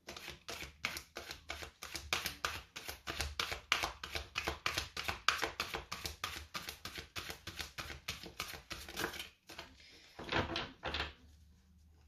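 A deck of oracle cards shuffled by hand: a rapid run of card flicks and snaps, about five or six a second, then two longer sliding rustles about ten seconds in.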